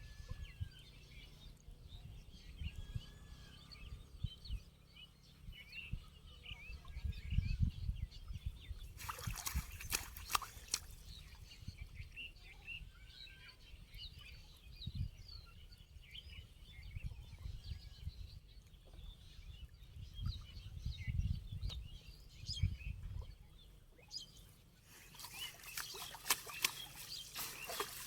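Birds chirping steadily with a few short whistled calls, and water splashing twice, about nine seconds in and again near the end.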